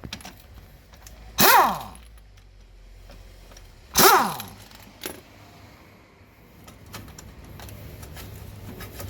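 Two short bursts of a power tool driving a 12mm socket, about a second and a half in and about four seconds in, each falling in pitch as it winds down: the scooter's rear brake caliper bolts being undone to get at the pads. A few light tool clicks follow.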